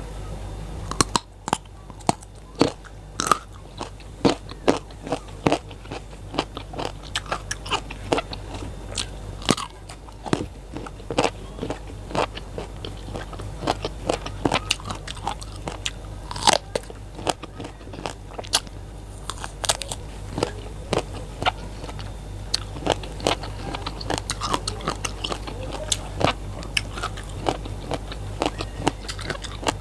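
A person biting and chewing crunchy raw vegetables: many sharp, irregular crunches, often several a second.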